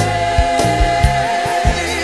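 Gospel worship music: a long held sung note that breaks into a wavering vocal run near the end, over bass and drum beats.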